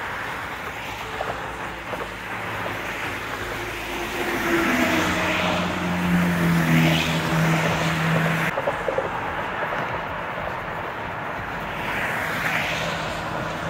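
Highway traffic passing close by, cars and trucks whooshing past one after another. A heavy truck's engine drone is loudest from about four to eight seconds in.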